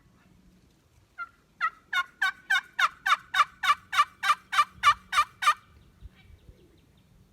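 A long series of turkey yelps: one lone note, then about fifteen evenly spaced sharp notes at three to four a second, growing louder and then stopping.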